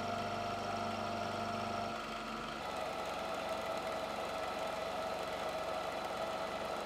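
Milling machine running, its spindle and end mill cutting small metal nubs: a steady mechanical hum whose tone shifts about two and a half seconds in.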